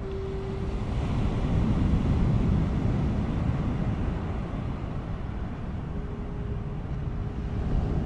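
Distant foghorns sounding over a steady low rumble of city and wind noise: one horn note at the start lasting about a second, and a second, longer note about six seconds in.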